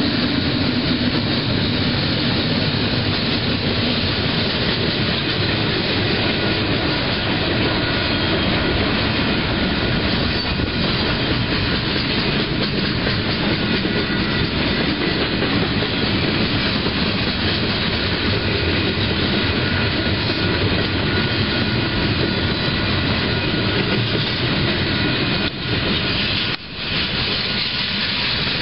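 Double-stack container cars of a freight train rolling past close by: a loud, steady rumble and rattle of steel wheels on the rails, which dips briefly twice near the end.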